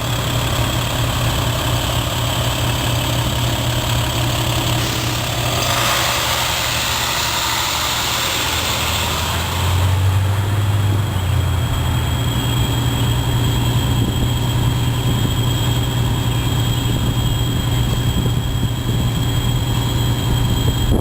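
Large diesel truck engine idling with a steady low hum, most likely a fire engine. A hissing rush of noise rises over it from about six seconds in and fades out about three and a half seconds later.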